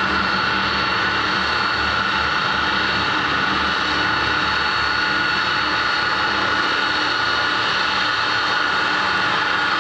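Boeing 787 Dreamliner's turbofan engines running steadily on a ground engine run: a steady high whine over a rushing hiss.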